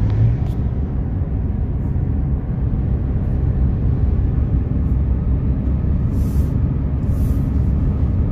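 Road noise inside a moving car's cabin: a steady low rumble of engine and tyres while driving.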